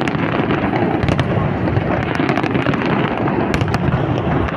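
Aerial fireworks shells bursting in a dense, continuous barrage: many sharp cracks over a steady rumble.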